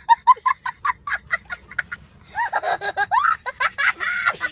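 Young boy laughing hard: a quick run of short, high cackles, then from about halfway longer, drawn-out whooping laughs.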